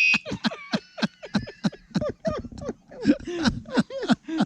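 Men laughing hard in quick bursts. A cheap bicycle alarm's steady high electronic tone cuts off right at the start.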